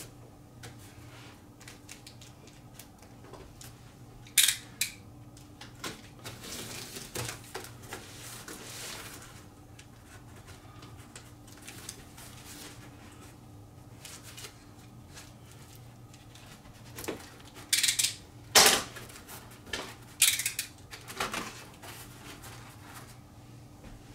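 Packaging being handled and opened: scattered small clicks and rustles, with a few short louder noisy bursts about four seconds in and again several times near the end, over a faint steady hum.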